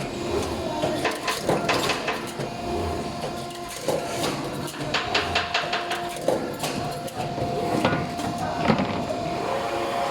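Double-sided buckle machine for nailless plywood boxes running: a steady hum under repeated sharp clicks and knocks, some in quick clusters, as it works.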